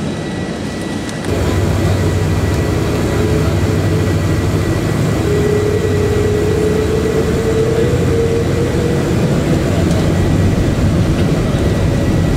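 Cabin noise from a double-decker airliner's Rolls-Royce turbofan engines, heard from a window seat over the wing during the takeoff roll. It is a steady rush with a low hum that steps up about a second in as takeoff thrust comes in, with a tone that slowly rises in pitch.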